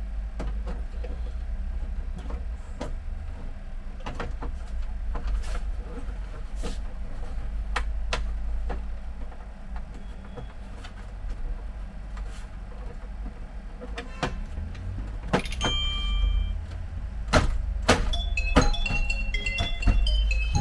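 Scattered clicks and knocks of plastic printer parts being handled and fitted, over a steady low hum. A short tinkling melody of electronic notes comes in near the end.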